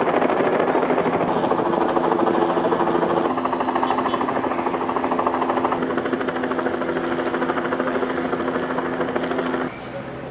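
Helicopter flying overhead: a steady rotor and engine drone with a fast pulsing chop. Its tone shifts about three seconds in, and it cuts off sharply near the end.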